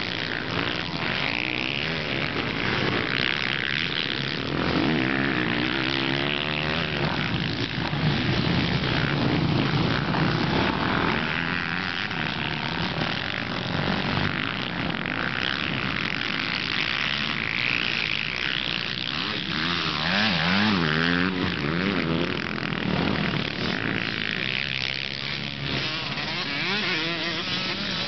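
Several motocross dirt bikes racing, their engines revving up and down in overlapping rising and falling whines as the riders accelerate and back off.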